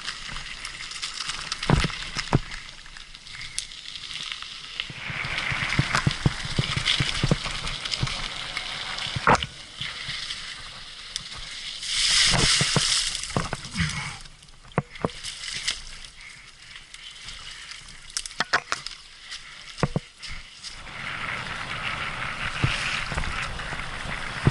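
Mountain bike ridden over a rough forest trail: tyres rolling on dirt, with frequent clicks and rattles from the bike over bumps. A louder hissing rush comes about twelve seconds in.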